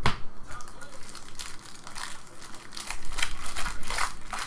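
A sharp tap on the table, then the foil wrapper of a trading-card pack crinkling as it is torn open by hand, the crinkles loudest from about a second and a half in.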